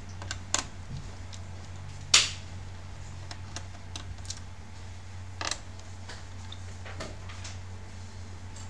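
Small screwdriver clicking and scraping on screws in a laptop's plastic bottom cover as they are backed out, with scattered light clicks and one sharper click about two seconds in.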